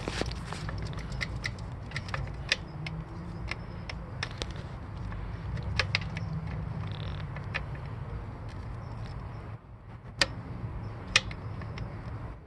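Scattered light metal clicks and taps from handling a motorcycle's shift lever and shifter peg, with a couple of sharper clicks near the end, over a steady low rumble.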